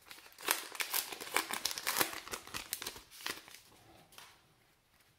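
Wrapper of a baseball card pack torn open and crinkled by hand: a quick run of crackles that dies away after about four seconds.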